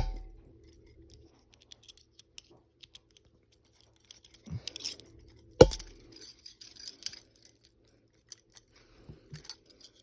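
Metal handcuffs being handled and undone: scattered sharp clicks and small metallic clinks, with two louder snaps, one at the start and one about five and a half seconds in.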